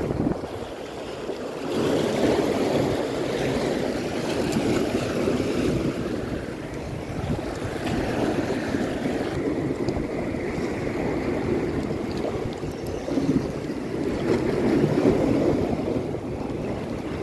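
Sea waves washing against the rocks of a breakwater, with wind buffeting the microphone; the noise swells and eases, loudest about two seconds in and again near the end.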